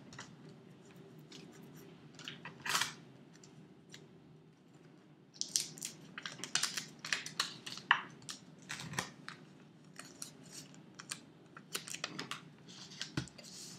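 Sticky tape and paper photographs being handled: scattered short crackles and taps of tape being torn, peeled and pressed down onto paper, in bursts about three seconds in and again in the second half.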